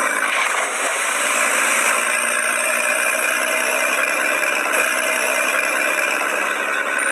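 Tractor engine sound effect running steadily at an even level, thin-sounding with no deep bass, dubbed over toy tractors that make no engine noise of their own.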